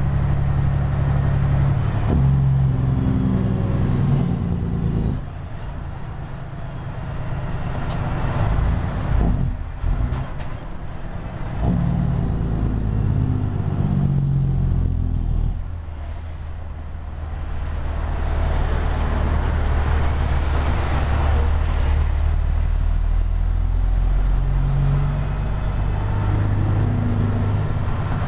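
Caterpillar C15 diesel of a Peterbilt 379, heard from inside the cab, pulling under load through the low gears of an 18-speed transmission. The engine note changes pitch from gear to gear and drops away three times, at about five, ten and sixteen seconds in, before pulling again.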